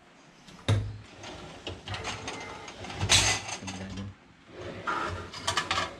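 Knocks and rattles of a stainless wire dish rack and aluminum cabinet doors being handled, metal clattering against metal. The loudest clatter comes about three seconds in, with a run of quick rattles near the end.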